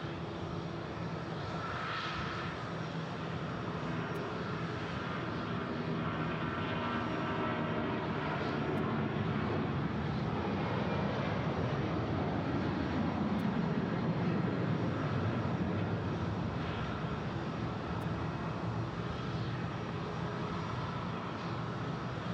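Jet airliner passing, its engine roar swelling to a peak about two-thirds of the way through with a falling pitch, then easing off slightly.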